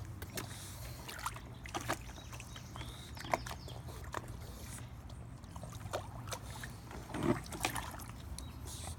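Water sloshing and splashing in a plastic kiddie pool as pugs wade in it and one dips its face into the water after a ball: a string of small, irregular splashes, with a louder one about seven seconds in.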